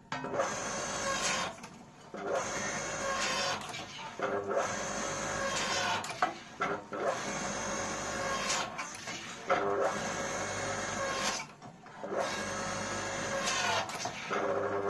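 Hydraulic pump of a 5-ton log-splitter forging press running under load as the dies squeeze a red-hot steel billet, with a steady tone that drops off briefly three times, about every five seconds.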